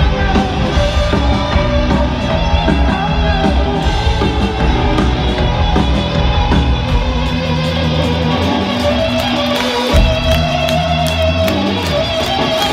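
Live rock band playing loudly through a large outdoor stage sound system, electric guitars to the fore over bass and drums, heard from out in the audience.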